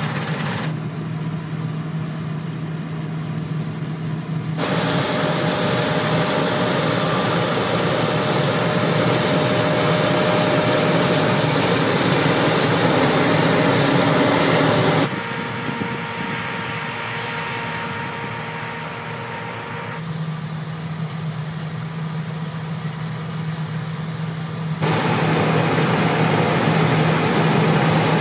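John Deere T660 combine harvester running while it cuts grain: a steady engine hum under dense threshing and machine noise. The level and tone change abruptly several times.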